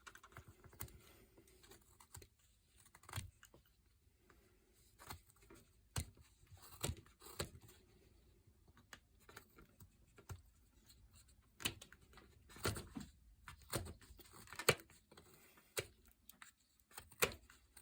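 Swiss Army knife blade cutting into basswood: irregular short slicing and scraping strokes as small chips are cut away, with quiet gaps between and a few louder cuts in clusters.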